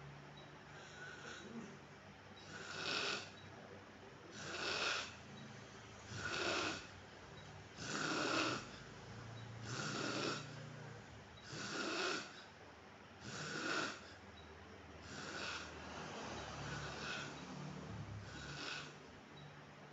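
A man snoring in his sleep: a steady rhythm of harsh, breathy snores about every two seconds, around ten in all, with a low rumbling drone between them.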